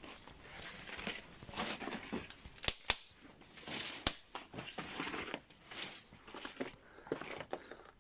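Footsteps crunching and rustling over dry forest-floor litter, irregular steps with a few sharp snaps, likely twigs, in the middle.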